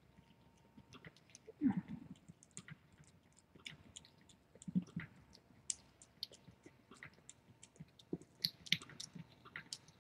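A cat eating wet food from a metal bowl: faint, irregular wet chewing and licking clicks and smacks, a few of them louder.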